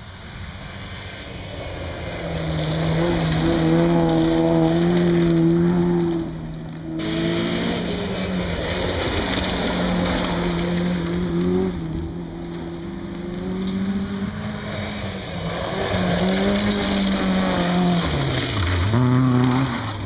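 Small 1400cc-class rally cars driven hard along a gravel forest stage: engine notes climbing and dropping through gear changes as each car goes by, over the noise of tyres on loose gravel. The sound changes abruptly about seven seconds in as one car's run gives way to another's.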